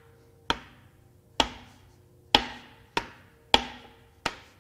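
Six sharp knocks, under a second apart, each ringing briefly: a tool handle striking down onto a piston crown in the bare cylinder bore of a 2.0L Chevy Cruze turbo-diesel block. The knocks are a test for play in the piston, connecting rod or bearings, since something sounded unhappy in there when the crank was turned.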